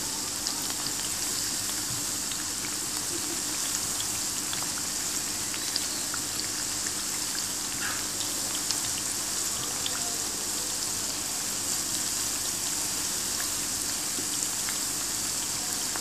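Nigella-seed pakoras deep-frying in hot oil in a kadai, being fried until crisp: a steady high sizzle with scattered small crackles.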